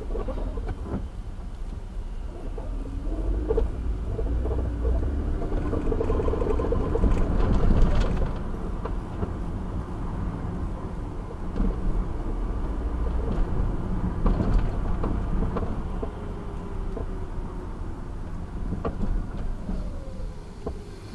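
Car driving in city traffic, heard from inside the car: a heavy low rumble of engine and road noise, with engine pitch rising and falling as the car speeds up and slows, and a few short knocks.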